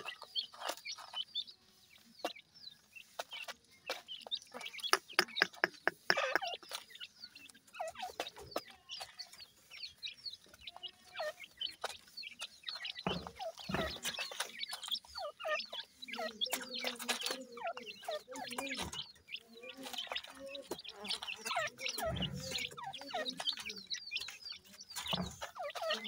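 Francolin chicks peeping in rapid short, high calls while they peck and scratch at soil and feed, with many small pecking taps.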